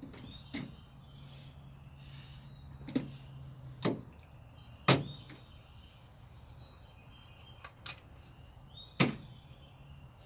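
Sharp clicks and knocks of car parts being handled and fitted back into place, about six spread out irregularly, the loudest about five seconds in. A low steady hum underneath stops about four seconds in.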